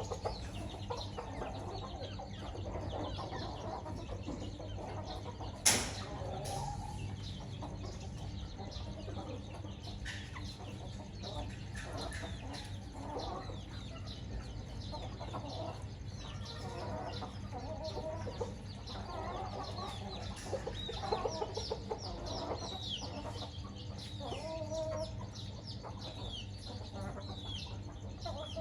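A hen clucking and her chicks peeping as they feed, with many short falling peeps over a steady low hum. One sharp click about six seconds in.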